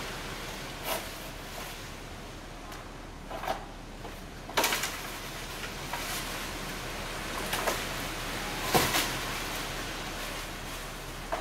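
Several sharp knocks and clacks, scattered and irregular, over a steady outdoor hiss; the loudest come a little under halfway and about three-quarters through.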